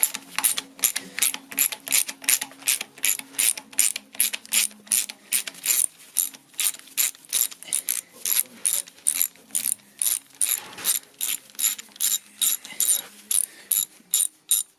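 Ratchet wrench with a 9/16 socket clicking steadily, about three clicks a second, as it winds out the rocker shaft bolts on a Ford pre-crossflow engine head.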